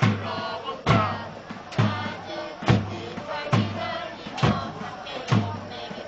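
Football supporters chanting in unison to a big bass drum struck steadily about once a second.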